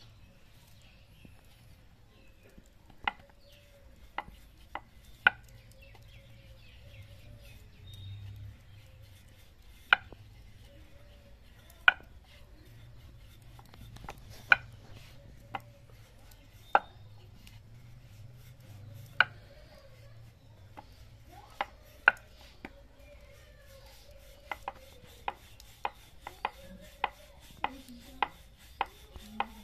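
Wooden rolling pin rolling out a paratha on a wooden board, knocking and clicking against it. The knocks are scattered at first, then come as a quicker, even run of about two a second in the last few seconds.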